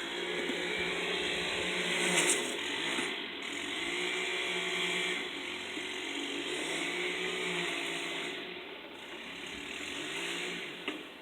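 Small petrol engine of landscaping power equipment running, its pitch rising and falling as the throttle changes, with a short click near the end.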